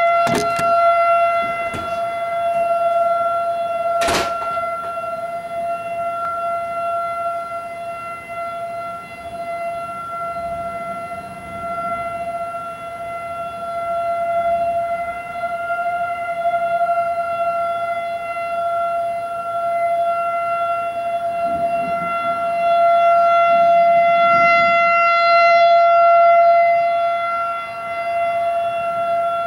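Federal Signal 2001-AC electromechanical tornado siren sounding a steady wail at full speed: one unwavering tone with overtones, its loudness slowly swelling and easing. A single sharp knock about four seconds in.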